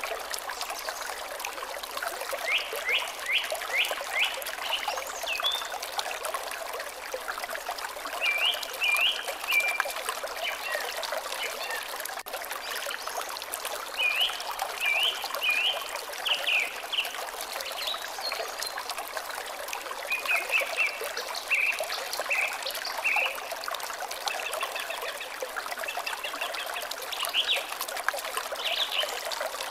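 Water trickling steadily, with a bird singing short phrases of quick high notes that recur every few seconds.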